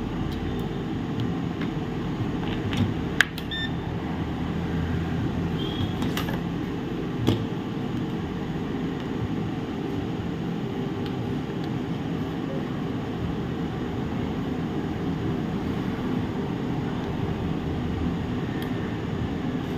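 Steady background hum, with a few light clicks and a couple of brief, faint high beeps from a multimeter's continuity tester as its probes are touched to points on a laptop motherboard.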